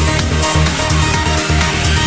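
Background electronic music with a steady, repeating bass beat.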